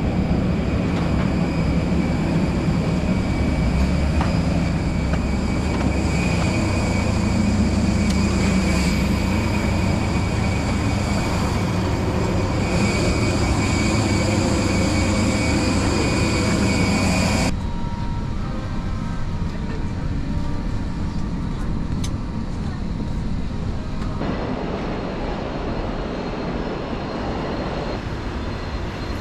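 Jet airliner noise at the boarding ramp: a steady loud rumble with high whining tones from the aircraft's engines or auxiliary power unit. A little over halfway the high whine cuts off suddenly, leaving a duller steady hum.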